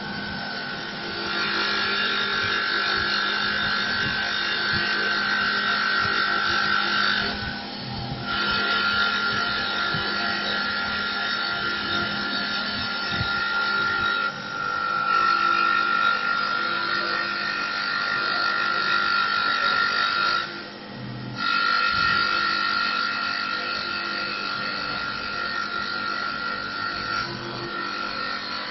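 Mini CNC wood-turning lathe cutting a wood blank: a steady high whine and low hum over the rasping noise of the cut, which breaks off briefly three times, about every seven seconds.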